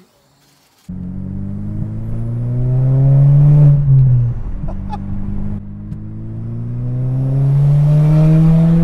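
Turbocharged 2.0-litre four-cylinder of a 2010 Audi A4, running through a catless test pipe and resonator-delete exhaust, accelerating through the gears, heard from inside the cabin. It starts abruptly about a second in; the engine note climbs, drops at a gear change about four seconds in, then climbs again.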